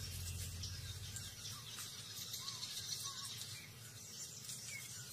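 Faint bush ambience: a steady high insect hiss, with a couple of soft short bird chirps near the middle.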